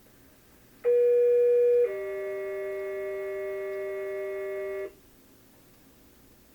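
Two-tone sequential pager alert over a dispatch radio channel: a steady one-second tone, then a lower tone held for about three seconds, cutting off sharply. The tones set off the county's fire pagers for the monthly test call.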